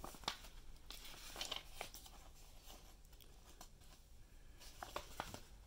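Paper pages of a small instruction booklet being turned by hand: faint rustling with a few sharper paper flicks, one near the start, a cluster about a second and a half in and more about five seconds in.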